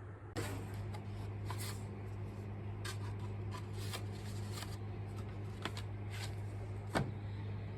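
Steady low hum with scattered light clicks and rustles of things being handled, the sharpest click about seven seconds in.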